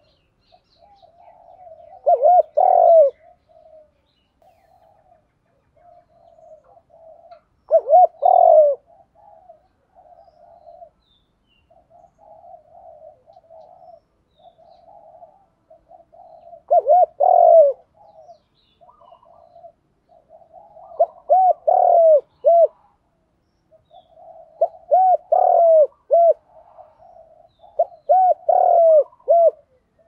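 Spotted dove cooing: about six loud phrases of a few short, arching coos, a few seconds apart and coming closer together in the second half, with softer, continuous low cooing between them.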